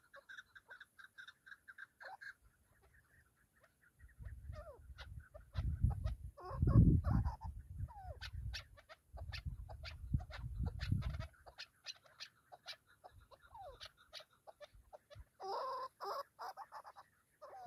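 Chukar partridges clucking and calling in a run of short, sharp notes, with louder bursts of chatter about six seconds in and again near the end. A low rumbling noise lies under the calls from about four to eleven seconds in.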